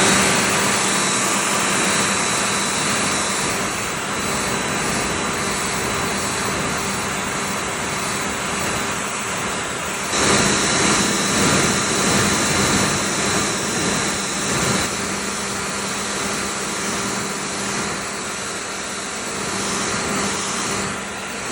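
Handheld hair dryer running steadily, blowing hot air onto a sneaker's air sole: a constant hum with a high whine over the rush of air. About halfway through the airflow gets louder and more uneven.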